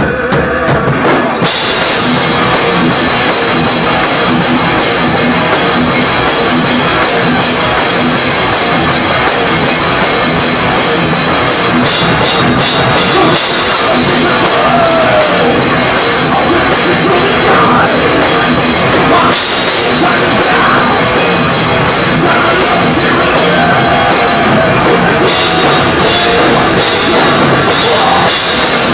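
Live thrash metal band playing a song at full volume, led by a pounding drum kit, with the full band kicking in at the very start.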